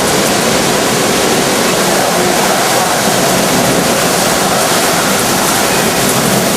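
Hurricane wind and driving rain: a loud, steady rushing noise with no let-up.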